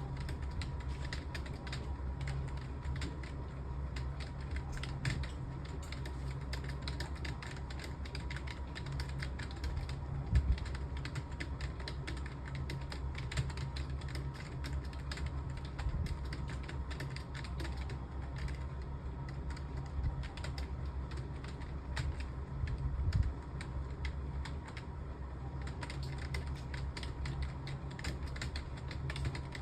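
Continuous fast typing on a computer keyboard: a dense, uneven stream of key clicks, with a couple of louder knocks, over a steady low hum.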